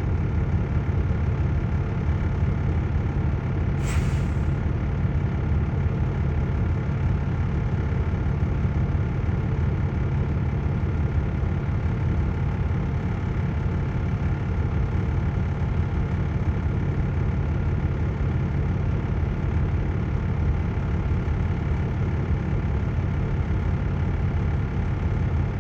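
Truck engine running steadily with a low drone, with a short hiss of air about four seconds in.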